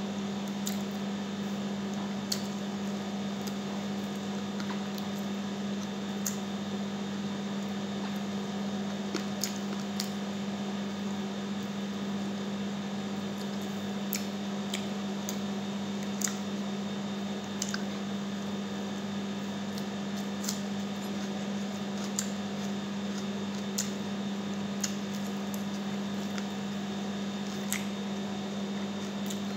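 Eating sounds from chewing and picking at sticky chicken by hand: scattered short wet clicks and smacks over a steady low hum.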